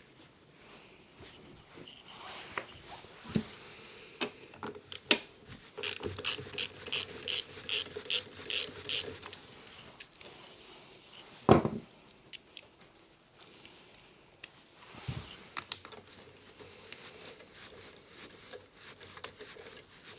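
Hand tools at work on a small lawnmower engine: a socket ratchet clicking in an even run of about three clicks a second, among scattered clicks and knocks of metal parts, with one louder knock about halfway through.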